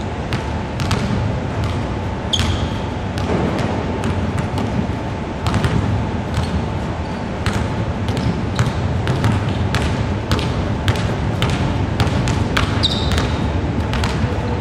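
Several basketballs bouncing irregularly on a hardwood court, over a steady low hum of the arena. A short high squeak sounds twice, once about two seconds in and once near the end, typical of a sneaker on the court.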